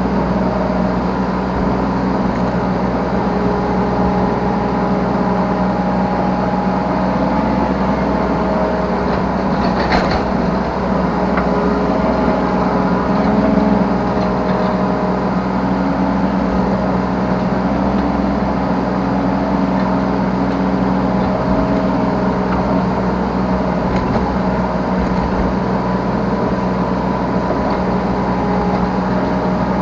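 Yanmar B3 Sigma 3-tonne mini excavator's diesel engine running steadily under hydraulic working load, heard from the operator's seat, with one sharp knock about a third of the way through.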